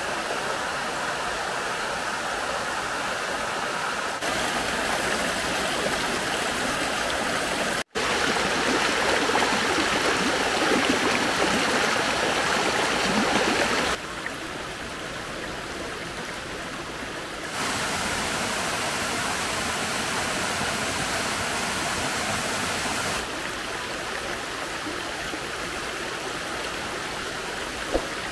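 A small waterfall pouring into a stream pool makes a steady rush of water. Its loudness jumps up or down abruptly several times, with a split-second drop-out about eight seconds in.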